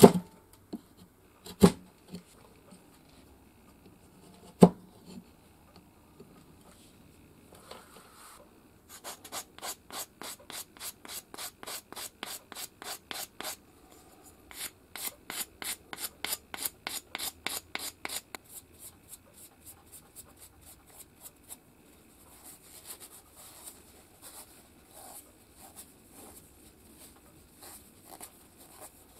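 Hand woodworking on a small wooden bead: a few sharp knocks of a chisel cutting into the board in the first five seconds, then regular rasping strokes about three a second as the bead is rubbed back and forth against an abrasive. From about two-thirds of the way through come lighter, hissier strokes as it is polished in a gray abrasive pad.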